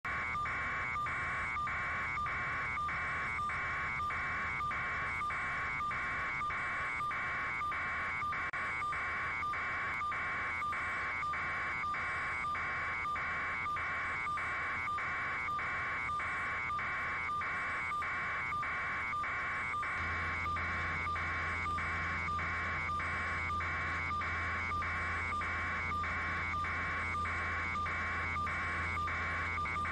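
A steady electronic beeping tone, pulsing rapidly and evenly throughout, over a low hum that grows louder about twenty seconds in.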